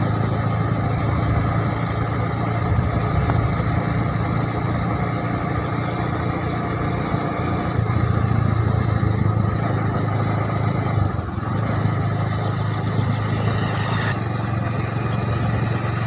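Engine and road noise of a moving vehicle, heard from on board: a steady low drone over a haze of tyre and wind noise.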